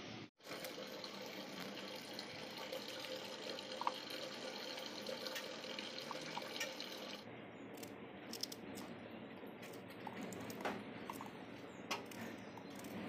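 Water running from a tap onto a steel plate of vegetables as they are washed. About seven seconds in it gives way to scattered soft knife clicks as onions are peeled and sliced.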